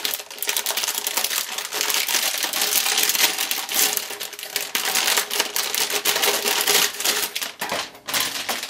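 Metallic anti-static shielding bag crinkling and crackling as a motherboard is worked out of it by hand. The dense run of crackles thins out near the end as the board comes free.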